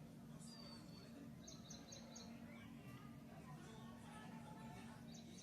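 Faint bird chirps over a steady low hum: a short chirp about half a second in, then a quick run of four chirps, with softer calls after.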